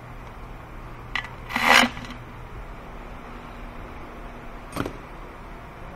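Metal hand tools clinking and rattling in a plastic tool tray as one is picked out: a sharp click about a second in, a louder rattle just after, and another click near the end, over a steady low hum.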